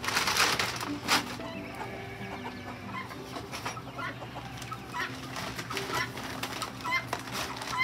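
Chickens clucking, with bursts of rustling and crinkling from feed bags being handled, loudest near the start and about a second in.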